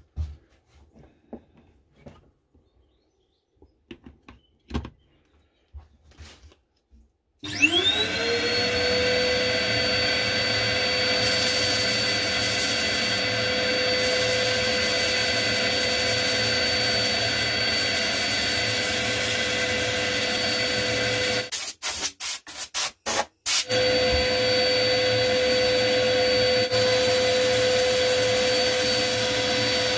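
Cordless drill with a sanding pad power-sanding a wooden bowl: after a few light knocks, the motor whines up to speed about seven seconds in and runs steadily, with a hiss of abrasive on wood at times. It cuts out and restarts in several quick blips about two-thirds of the way through, then runs on.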